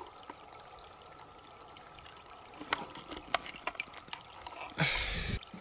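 Shallow stream water with faint trickling and small drips and splashes as a hand moves through it. A louder burst of splashing comes near the end.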